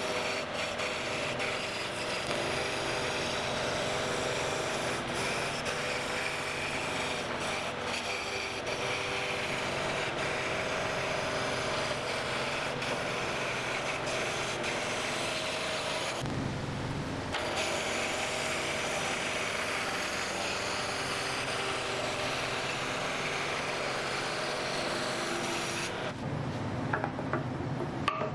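Wood being worked with a tool: a steady rasping, rubbing noise with a faint hum under it, breaking off briefly a little past halfway. Near the end it stops, leaving a few clicks.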